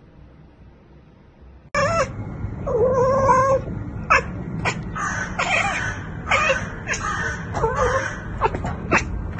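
Tabby cat chirping and chattering while staring out of a window: a rapid string of short clicks mixed with short, gliding meow-like chirps, starting suddenly about two seconds in.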